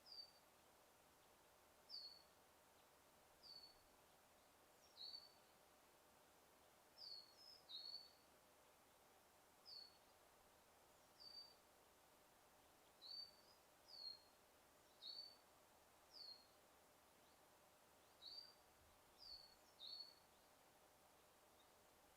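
A bird giving short, high chirps, each a quick downward slur, repeated about once a second over a faint steady background hiss.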